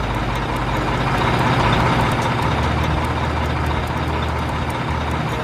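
A Liebherr mobile crane's diesel engine running as the crane truck drives past: a steady low drone under an even hiss. It cuts off suddenly at the end.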